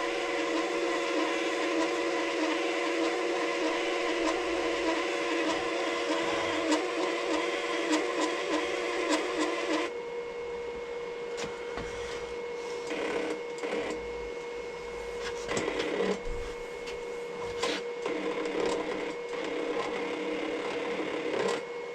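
MIG welder's wire-feed motor whirring steadily with several fixed tones while the wire is not actually feeding through the torch lead. It cuts off abruptly about ten seconds in, leaving a fainter steady hum from the welder and some knocks and handling sounds.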